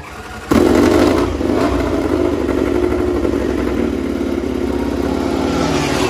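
Honda RC213V MotoGP bike's V4 engine being started: a short spin on the external starter, then the engine fires about half a second in with a loud burst and a couple of throttle blips, and settles to a loud, steady idle.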